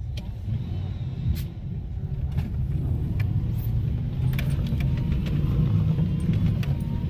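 Truck engine pulling hard through deep snow, heard from inside the cab: a dense, low rumble that grows louder toward the end, with scattered sharp clicks and knocks.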